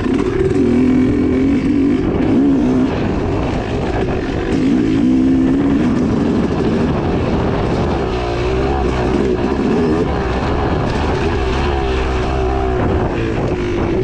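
2016 Yamaha YZ250X single-cylinder two-stroke engine under way, its pitch rising and falling again and again as the throttle is worked through rough off-road terrain.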